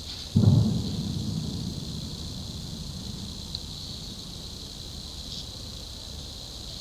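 A sudden low rumble from the sky, starting about half a second in and fading away over a couple of seconds, over a steady chirring of crickets.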